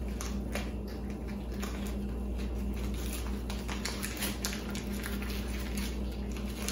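Dry nori seaweed sheet crackling and rustling as it is folded by hand into a cone-shaped hand roll: a string of small, irregular clicks over a steady low hum.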